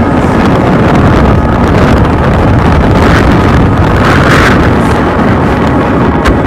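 Wind blowing hard across the microphone: a loud, rough rumble with a couple of stronger gusts partway through.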